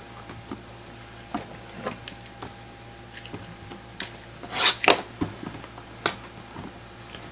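A sealed cardboard trading-card case being opened and handled by hand: scattered light scrapes and clicks, with a louder rustling scrape about four and a half seconds in and a sharp click a second later.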